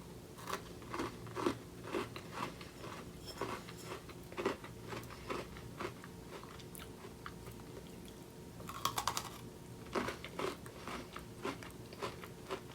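Close-up biting and chewing of a Toffee Crunch Oreo sandwich cookie: irregular crisp crunches as the cookie breaks between the teeth.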